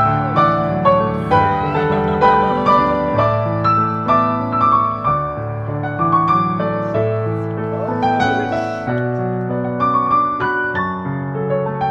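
Background piano music: a gentle melody of struck notes over sustained low notes.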